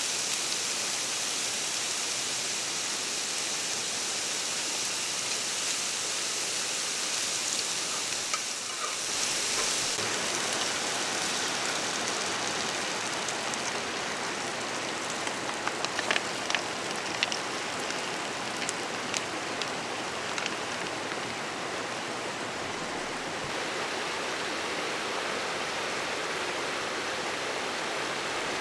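Steady hiss of water, running evenly throughout, with a slight change in tone about nine seconds in. A few light clicks come around the middle.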